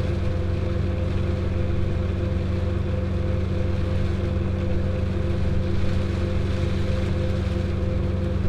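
Combine harvester's diesel engine running steadily at working speed: an even, unchanging low drone.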